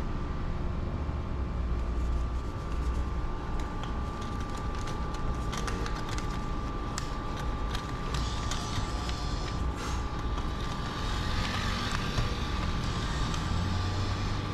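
A vending machine's bill acceptor whirring and clicking as it draws in a banknote, over a steady background of street traffic.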